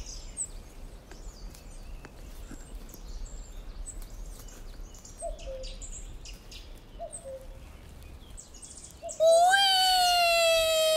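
Forest ambience with scattered short bird chirps and two brief lower calls. Near the end a loud sustained note sets in, sliding slowly down in pitch.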